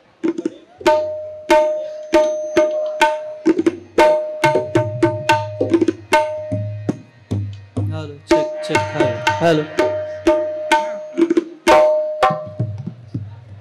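Tabla being played: sharp, ringing strokes on the treble drum holding one steady pitch, joined about four seconds in by deep bass strokes on the bass drum.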